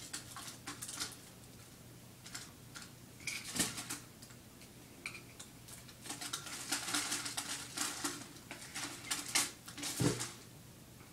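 A pen scraping and tapping inside a makeup compact, digging out the pressed powder: a run of small clicks and scratches that gets busier in the second half, with one louder knock near the end.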